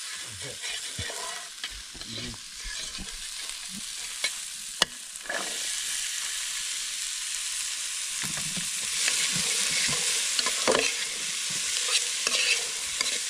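Food sizzling in a metal pot over a wood fire while a metal spoon stirs and scrapes the pot, with small clicks and a sharp knock about five seconds in. The sizzle gets louder a little past five seconds in, as more food goes into the pot, and louder again later on.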